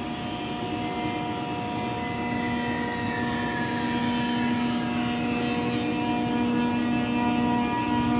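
Deutsche Bahn ICE 3 high-speed electric train pulling away slowly, its electrical equipment humming as a steady chord of tones. Fainter whines glide downward during the first half, and the sound grows gradually louder as the train draws nearer.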